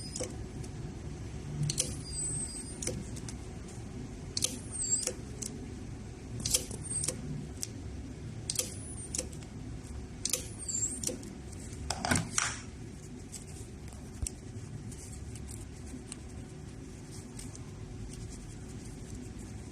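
A 35 kHz ultrasonic welding machine runs six short weld cycles, about one every two seconds, each a brief high-pitched squeal with a hiss as the horn presses into layered material. The welds stop about two-thirds of the way through, leaving a steady low hum.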